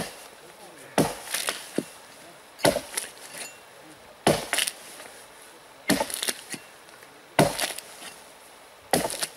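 Axe chopping into a dead fallen tree trunk: a sharp strike about every one and a half seconds, each followed by a brief crackle of splintering wood.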